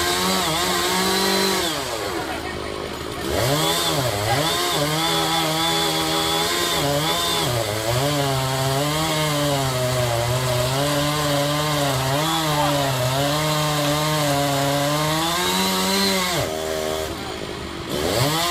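Chainsaw running at high revs while cutting into the base of a tree trunk, its engine note wavering up and down as it works in the cut. The revs fall away briefly about two seconds in and again near the end, then pick back up.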